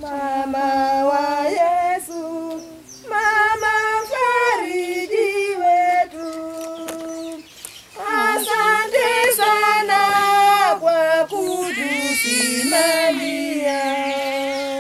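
Women's voices singing a church chant unaccompanied, in long held notes that slide from one pitch to the next, with short pauses for breath.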